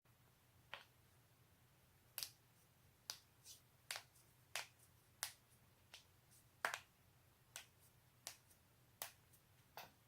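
A person's joints cracking: a series of about a dozen sharp, dry pops, roughly one every three-quarters of a second and uneven in strength, over a faint low hum.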